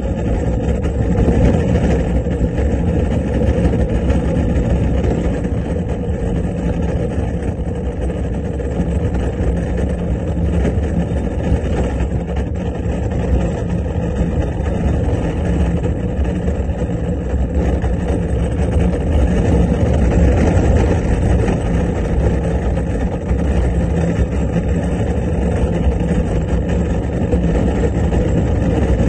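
Unpowered downhill cart rolling along an asphalt track: a steady, loud rumble of the wheels on the tarmac mixed with rushing air on the rider-held microphone.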